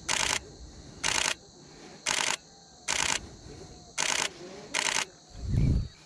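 Nikon D500 DSLR shutter firing in six short rapid bursts, about one burst a second, each a quick string of clicks. A low thud about five and a half seconds in.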